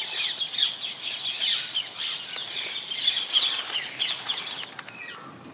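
A flock of rose-ringed parakeets calling, with many short, overlapping high-pitched squawks and chirps that thin out over the last second.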